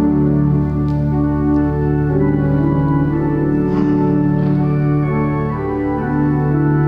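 Church organ playing slow, sustained chords that change every second or two.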